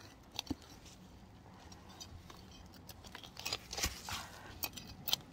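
Hand trowel and fingers working garden soil: a couple of short scrapes about half a second in, then a run of gritty scraping and crunching over the last two seconds.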